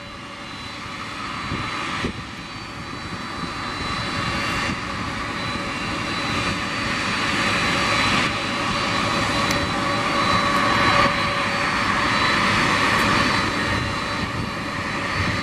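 Jet engines of a taxiing Boeing 767 freighter running at low taxi power, a steady rushing roar with a thin high whine that grows louder as the aircraft draws closer, loudest about two-thirds of the way in, then easing slightly.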